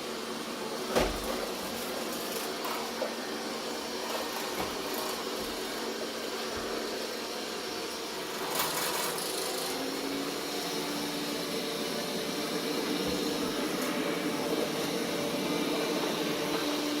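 Roborock S6 MaxV robot vacuum running with a steady whir of its fan and brushes, with a sharp click about a second in and a brief louder rush of noise near the middle.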